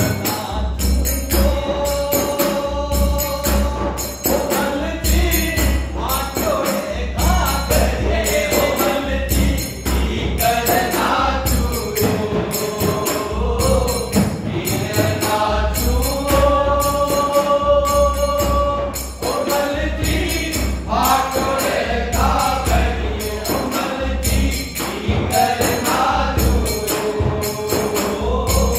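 A folk song sung to harmonium and drum accompaniment, with long held vocal notes over a steady, regular drum beat. A large hand-played frame drum keeps time.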